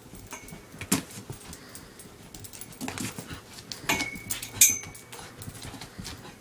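A small dog scrambling in circles as it chases its own leash: irregular knocks and scrapes, loudest about four and a half seconds in, with a couple of brief high whines, one near the start and one around four seconds in.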